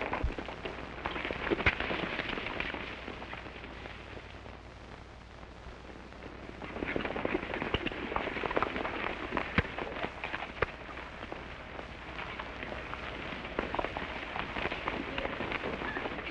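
Hoofbeats of several horses galloping over dirt, a dense clatter that dies down for a couple of seconds and then builds again as the riders come past. A few sharper cracks stand out among the hooves.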